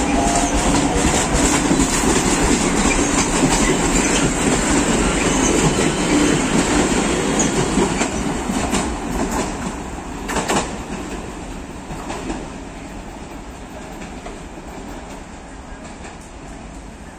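CNR 3000-series electric multiple-unit commuter train rolling along the track, its wheels clacking over the rails, a couple of sharp clacks partway through. Its rumble fades steadily over the second half as it draws away.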